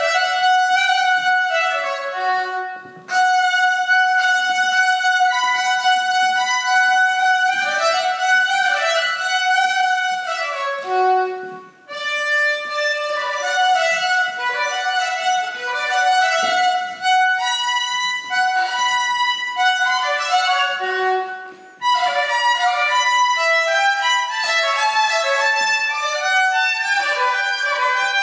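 Solo violin playing a slow melody of held notes, played to try out the room's acoustics. The phrases break briefly about three, twelve and twenty-two seconds in.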